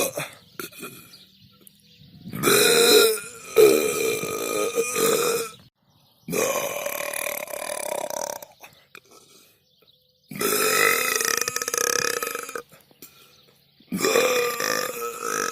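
A person belching deliberately: five long, loud burps one after another, each lasting one to two seconds with short pauses between.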